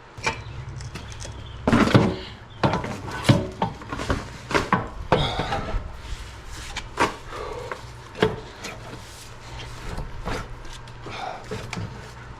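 Irregular knocks and clanks of tools and metal parts being handled while a hydraulic cylinder is put back together, over a steady low hum that starts right at the beginning.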